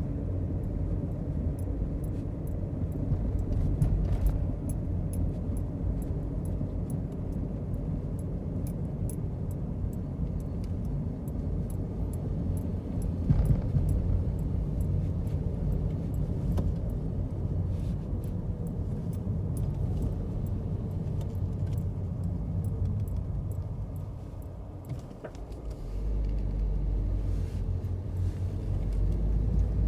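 A motor vehicle running: a steady low rumble with faint ticks and rattles, dipping briefly about 25 seconds in before going on heavier.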